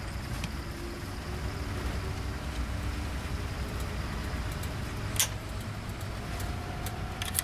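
Steady low engine and road rumble inside a car's cabin, with a single sharp click about five seconds in.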